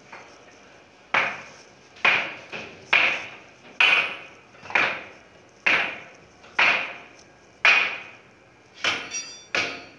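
Repeated hard blows on metal, about one a second and about ten in all, each with a short ring as it fades. The blows strike caked deposits on a steel bar grate, loosening them in a cloud of dust.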